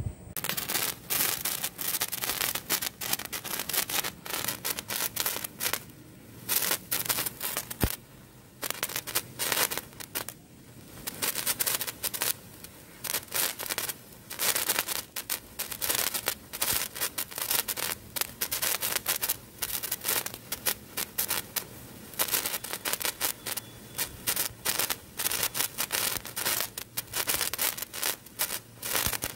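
15 cm colour sparkler burning, a dense irregular crackle of tiny pops and fizzing sparks, with a couple of brief lulls.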